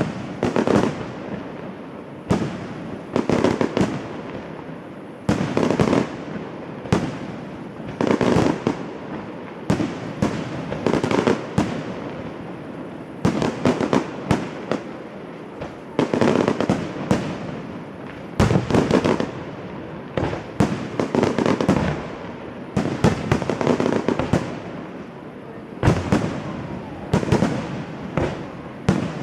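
Fireworks display: aerial shells bursting in a steady string of loud bangs every second or two, each trailing off in echoing rumble and crackle.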